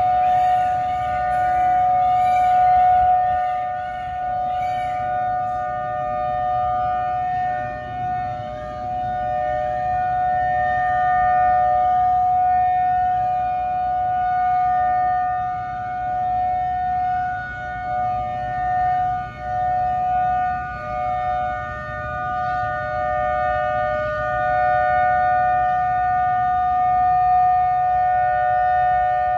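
Outdoor tornado warning siren sounding a steady two-note wail, swelling and fading in loudness every several seconds. Over the first few seconds, peacocks give a quick series of loud repeated calls, alarmed by the siren.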